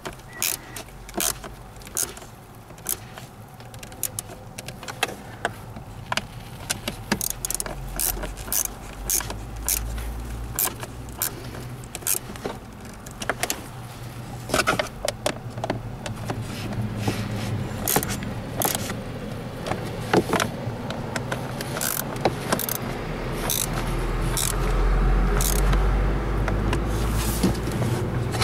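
Irregular metallic clicks and clinks of a bolt, washer and hand tools being handled during work under a car dashboard, over a low steady hum that swells near the end.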